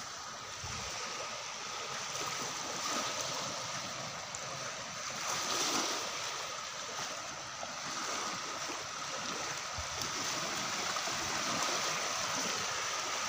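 Small waves washing onto a shore: a steady rush of water that swells about halfway through. A faint steady high note runs underneath.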